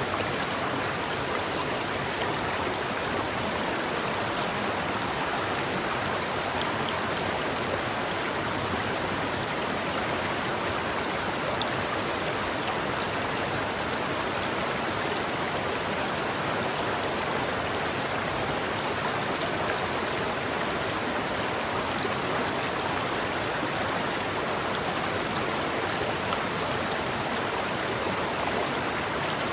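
River water flowing steadily over rocks, a constant rushing and babbling with small splashes.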